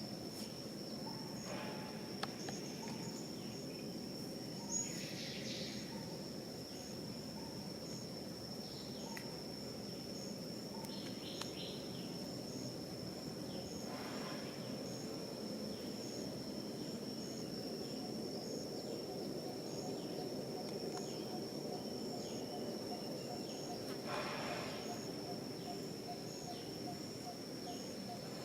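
Outdoor ambience dominated by a steady, high-pitched insect drone, with a fainter chirp repeating about once a second. A few short rustling sounds come through about five, fourteen and twenty-four seconds in.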